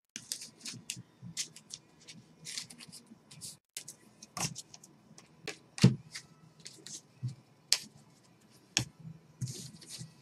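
Trading-card packs and cards being handled at a table: irregular crinkling and rustling of pack wrappers with quick clicks and taps of cards, and one louder thump about six seconds in.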